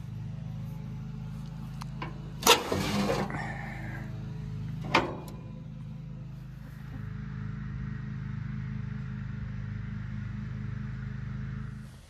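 Tractor engine running steadily with a low even hum. There is a sharp knock about two and a half seconds in, followed by a brief rush of noise, and another knock around five seconds.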